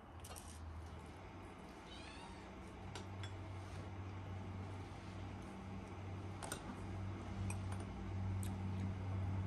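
Low steady hum with brief breaks every second or two, growing louder toward the end, with a few light clinks of tea glasses and plates.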